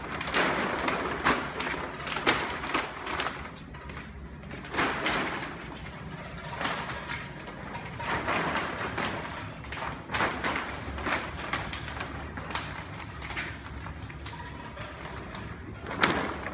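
Shrink-wrap plastic film being handled and folded, rustling and crinkling irregularly, with scattered knocks and a sharper bump near the end.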